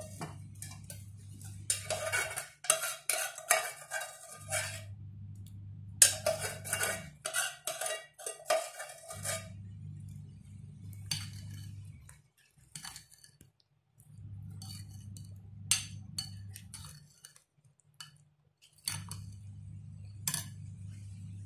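Steel spoon stirring chicken pieces into thick batter in a glass bowl: clinking and scraping against the glass in bursts, busiest in the first half and sparser later.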